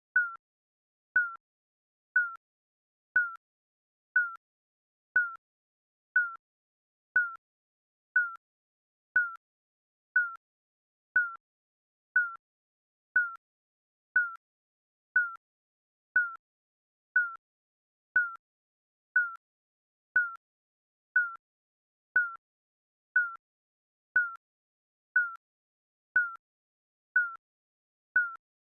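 Digital countdown timer beeps: a short, high electronic beep once every second, each one sharp at the start and dying away quickly.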